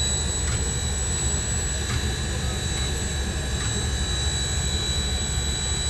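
Canadian Pacific 2816 'Empress', a Hudson-type steam locomotive, standing with steam venting in a steady roar over a low rumble.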